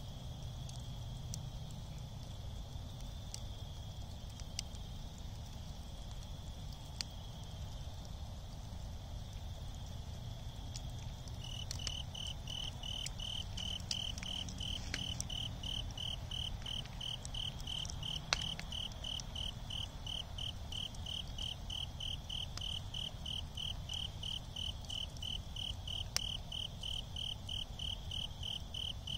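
Crickets chirping over the soft sound of a wood fire burned down to embers. A steady high insect trill gives way, a little over a third of the way in, to a louder fast, even run of cricket chirps. Now and then a sharp pop sounds from the coals, over a low rumble.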